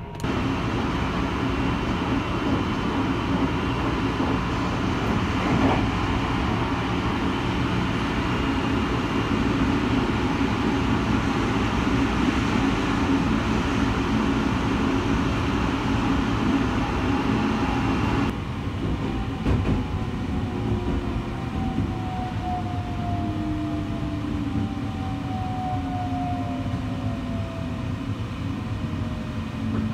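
Inside the 285-series Sunrise Seto/Izumo electric sleeper train running at speed: a steady rumble and rush of wheels on the rails. About two-thirds of the way through it turns quieter, and a falling whine from the traction motors comes in as the train brakes for its stop.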